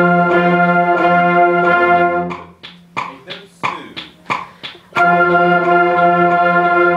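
School concert band holding a long unison note, breaking off about two and a half seconds in and coming back in about five seconds in, with steady ticking about three times a second in between.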